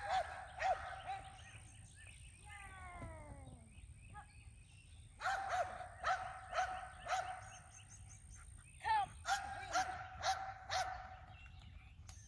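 A German Shepherd-type dog barking repeatedly as it runs an agility course, in three bouts of quick barks: right at the start, about five seconds in, and again about nine seconds in.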